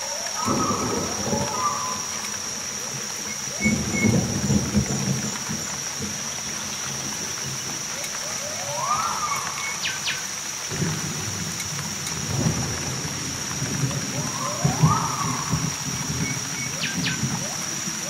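Heavy tropical rain falling steadily, with thunder rumbling about four times. A steady high insect drone runs under it, and three short rising-and-falling calls are heard.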